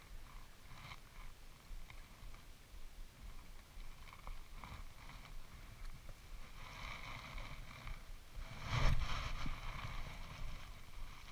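Spinning reel being worked by hand, giving a faint whir from about six and a half seconds in. A sudden thump about nine seconds in is the loudest sound, with a few small ticks before the whir.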